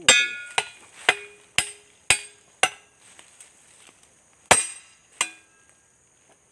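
A machete blade striking the top of a wooden fence stake to pound it into the ground. It makes sharp clanks with a brief metallic ring: six blows about half a second apart, then after a pause two more.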